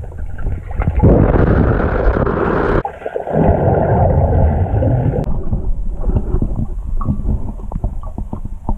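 Muffled underwater sound in a swimming pool: a loud rush of churning water and bubbles about a second in and again around three seconds in as swimmers plunge in, then many small bubbly clicks and gurgles.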